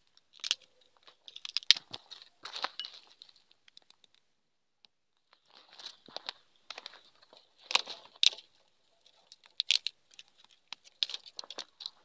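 Small fire of dry twig kindling crackling and snapping as it catches, in irregular sharp pops and short crackly runs, with a brief lull about four seconds in.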